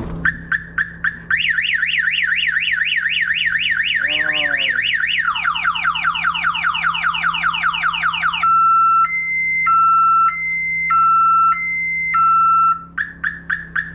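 Car alarm going off and cycling through its tones: a few quick chirps, a fast warble, a run of rising whoops, a high-low two-tone, then chirps again. It was set off easily, a sensitive alarm.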